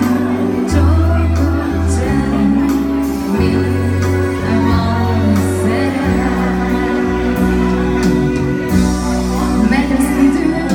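Live amplified music: a woman singing into a microphone over an electronic keyboard accompaniment, with low bass notes that change every second or two.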